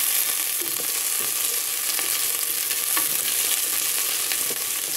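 Diced potatoes sizzling as they fry in hot oil in a pot, a steady hiss, with a wooden spoon stirring them and now and then tapping the pan.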